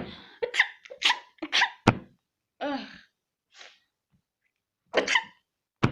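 A person sneezing repeatedly: a quick run of short, sharp sneezes in the first two seconds, a brief voiced breath, then another sneeze near the end.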